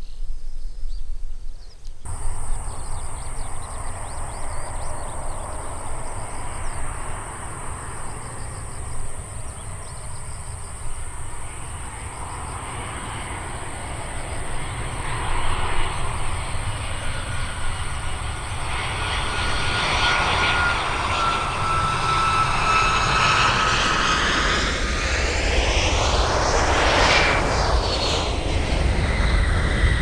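Boeing 737-800 airliner's CFM56-7B turbofan engines on final approach, a steady jet rumble growing louder as the plane comes in to land. An engine whine slides down in pitch as it passes close by, with a sweeping, phasing sound near the end.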